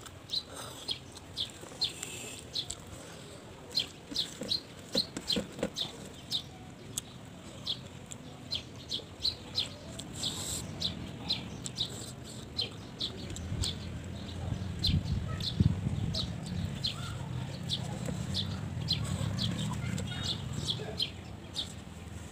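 A bird chirping over and over, short high chirps about twice a second, with a low rumble rising in the second half.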